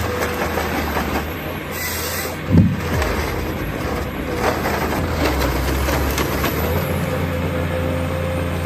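Heavy machine's engine running steadily, with a held whine over its low hum and a single knock about two and a half seconds in.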